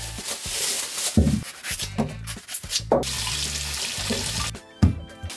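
Water running from a kitchen tap into a sink, with a few knocks about a second apart, over background music.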